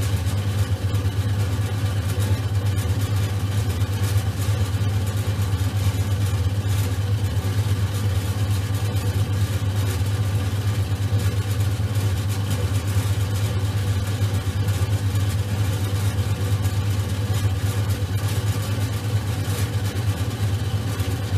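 Electric potter's wheel running steadily, its motor giving a constant low hum as clay is centred on the spinning wheel head.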